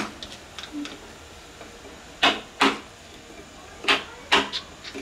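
Wood-carving chisel being struck into the underside of a carved wooden elephant statue: sharp wooden knocks, mostly in pairs, a pair about every second and a half.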